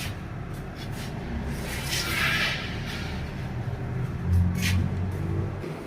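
MG HS engine and gearbox running with a low drone that grows louder about four seconds in. This is the bad transmission noise put down to a worn flywheel bearing.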